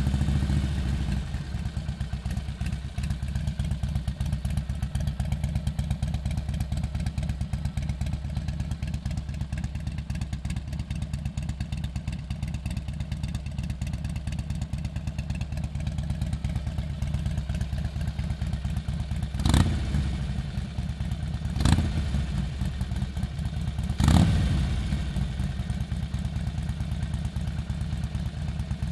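2011 Harley-Davidson Forty-Eight Sportster's 1200 cc V-twin idling through a Vance & Hines Blackout 2-into-1 exhaust with its standard baffles, a steady low rumble. About twenty seconds in, the throttle is blipped three times, a couple of seconds apart.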